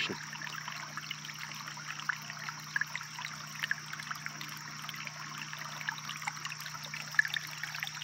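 Shallow creek trickling over stone ledges and down a small drop between rocks: a steady babble dotted with small splashes and drips.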